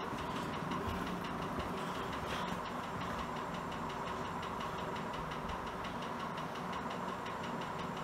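Lesslie Locke spinner ceiling fan running steadily on its highest speed, its motor humming and blades moving a lot of air, with a faint regular pulsing.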